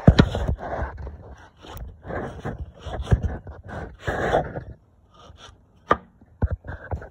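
Handling noise: irregular knocks, scrapes and rustles in uneven bursts, with no motor running.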